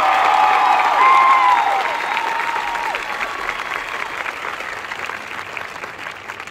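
Crowd in the stands applauding, with several long whoops over the first few seconds, then dying away.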